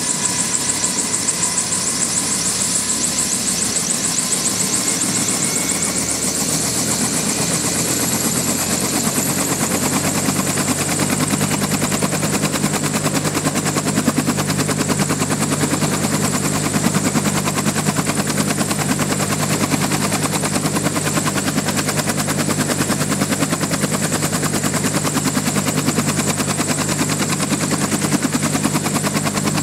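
Bell UH-1 Huey helicopter on the ground running up: the T53 turboshaft gives a high, steady turbine whine, and the turning main rotor beats rapidly and evenly over it. In the first few seconds some of the tones rise, and about eight seconds in a deeper steady hum joins as the rotor settles at speed.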